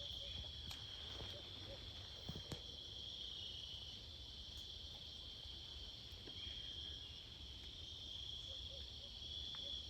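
Steady chorus of crickets or similar insects, a continuous high-pitched trill, with a few faint ticks or rustles around two and a half seconds in.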